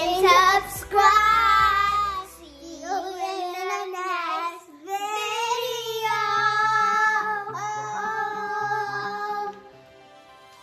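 Singing in a high child's voice with music, long wavering held notes in several phrases, stopping about a second before the end.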